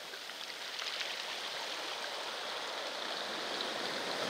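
Steady wash of sea water, small waves lapping, with no distinct events and a slight rise in level.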